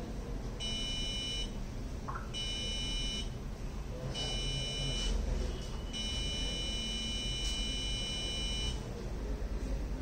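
Buzzer on an Arduino Nano eye-blink Morse code circuit, beeping for as long as the eye-blink sensor is held closed. It gives three short beeps of about a second each, then one long beep of about three seconds: dot, dot, dot, dash, the Morse letter V.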